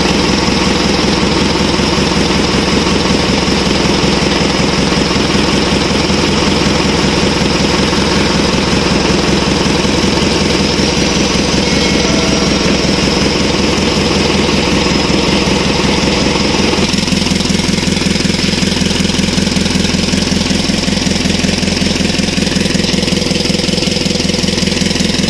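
Isuzu 4HL1 four-cylinder diesel engine idling steadily with a knocking diesel clatter, running again after its injector nozzles were rebuilt to cure hard starting and stalling at idle. The sound changes abruptly about two-thirds of the way through.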